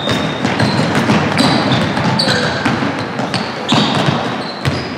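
Basketball bouncing on a gym's hardwood court during play: a run of uneven thuds, with game noise in the hall around it.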